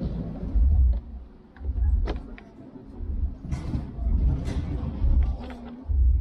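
Deep bass thumps from a sound system's subwoofers during a sound check, about one a second, with a few light clicks and knocks of gear being handled.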